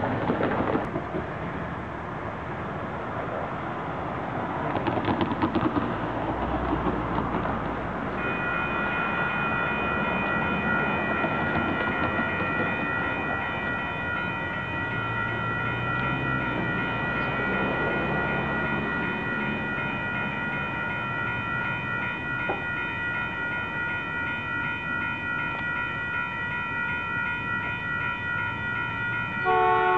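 Road traffic passing, then a railroad crossing warning bell starts about eight seconds in and rings steadily while the gate arm lowers. Near the end a train horn sounds.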